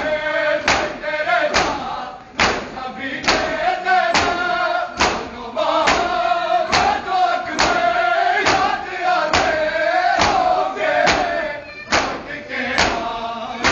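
A group of men chanting a noha (Shia mourning lament) in unison, over a steady beat of open hands striking bare chests in matam. The strikes come together, a little faster than once a second.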